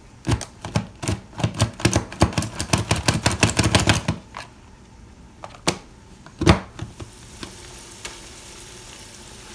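Hand plunger food chopper clacking rapidly as it is pressed down again and again on an onion, followed by a few separate knocks. From about seven seconds in, a faint steady sizzle of ground beef cooking in a pot.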